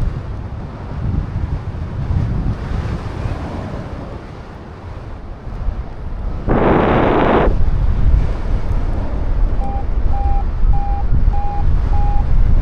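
Strong wind buffeting the microphone in flight. About six and a half seconds in there is a one-second burst of hiss. Near the end five short beeps rise slightly in pitch, like a flight variometer signalling lift.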